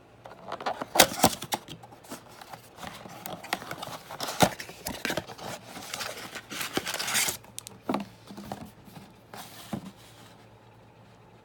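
A cardboard trading-card blaster box being torn open by hand: plastic wrap and cardboard tearing and crinkling, with scattered sharp clicks and scrapes, then a couple of light knocks as the contents are handled.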